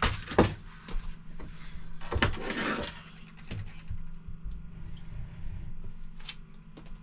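Handling noises: scattered clicks and knocks with a rustling stretch about two seconds in, over a steady low hum.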